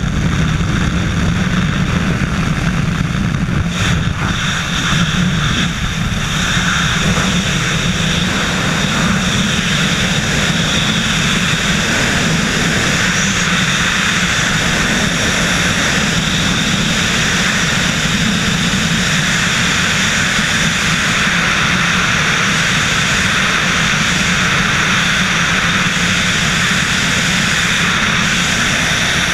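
Loud, steady wind rushing over a helmet-mounted camera in skydiving freefall. At the start this is the open door of a propeller jump plane in flight, with engine and slipstream noise; a few seconds in the skydiver exits and the sound turns to the unbroken rush of freefall air.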